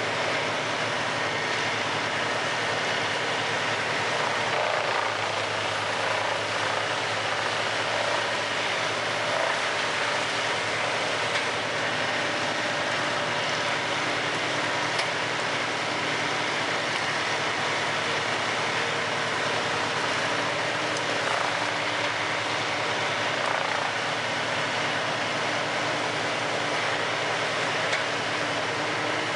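Heavy wood-chipping machinery running steadily, with the chipper's engine and the loader working together in one continuous loud drone.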